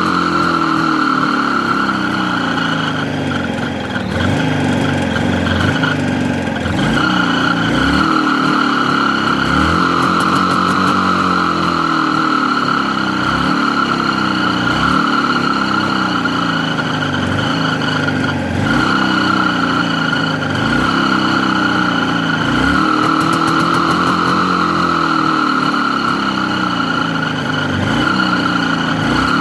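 Jawa 638 motorcycle's two-stroke twin engine running while the throttle is blipped again and again, the revs rising and falling about every two seconds. Over it sits a steady high whistle, almost a grinding, from the ignition side of the crankshaft, which the owner blames on poor-quality new crankshaft seals.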